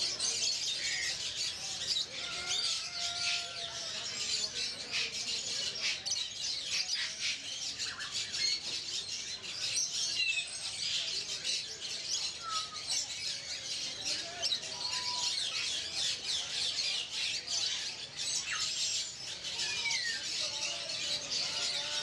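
Many small caged birds chirping and twittering at once in a dense, continuous chatter, with short whistled calls sliding up or down now and then.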